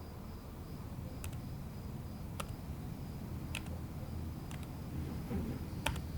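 Quiet background ambience: a steady low rumble with a faint, broken high-pitched chirping like insects, and a few sharp ticks about a second apart.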